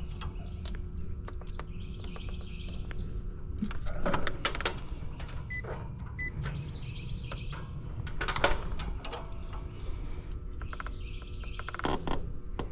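Scattered clicks and knocks of hands and tools working at an air-conditioner compressor's terminals while it is being checked for a short to ground, over a steady low rumble, with birds chirping in the background three times.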